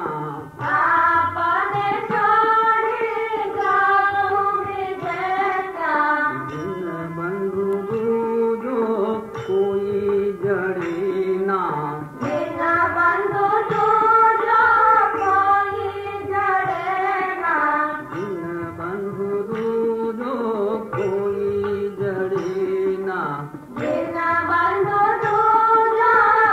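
Background music: a voice singing a slow Indian-style melody in long, curving phrases over instrumental accompaniment.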